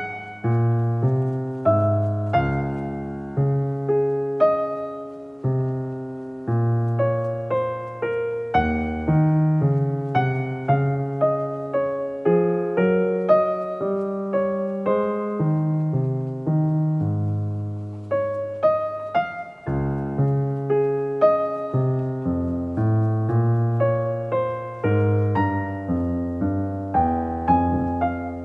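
Background piano music: a steady flow of single melody notes over held bass notes.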